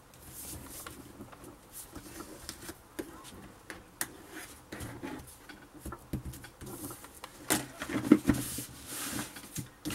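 Paper being creased with a bone folder over paper-covered chipboard: rubbing and scraping strokes with scattered light clicks, busiest and loudest near the end.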